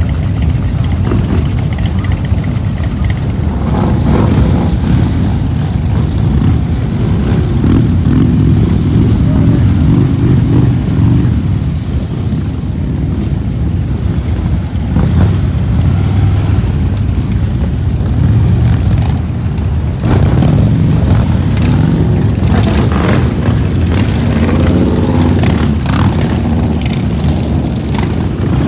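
Many Harley-Davidson V-twin motorcycles running and riding past in a group, a dense low rumble that swells twice as bunches of bikes go by.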